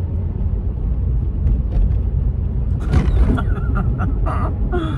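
Steady low rumble of a car's engine and tyres heard inside the cabin while driving. About three seconds in, a few short mumbled vocal sounds.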